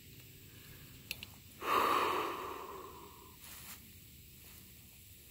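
A person's long breath out, starting sharply about one and a half seconds in and fading over about a second and a half, after a couple of faint clicks.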